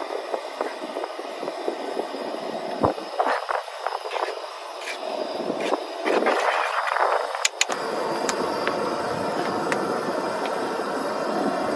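Strong wind gusting across the microphone, rising and falling, with a few sharp clicks about two thirds of the way through.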